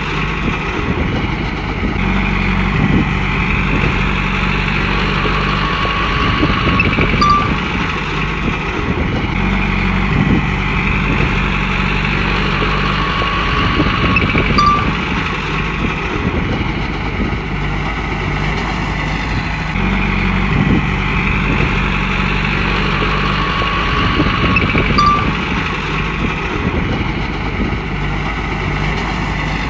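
Komatsu bulldozer's diesel engine running under load, its note swelling and easing in a repeating cycle of about nine seconds as the dozer pushes and backs off.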